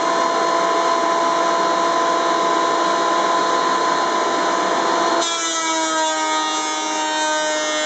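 Ridgid 13-inch thickness planer running and planing a walnut board, a loud steady machine noise over the motor's steady whine. About five seconds in, the cutting noise drops off abruptly and the motor keeps running.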